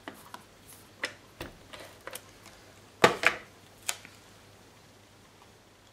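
Scattered short clicks and taps from an ATG adhesive tape gun and small cardstock pieces being handled and pressed down, about eight in all, the loudest a quick pair about three seconds in.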